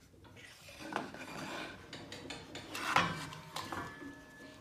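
A stationary table saw's blade being cranked up by its height handwheel, the elevation gearing giving a scraping, grinding rattle with small clicks, while a wooden jig board shifts and knocks on the steel table. The loudest knock comes about three seconds in.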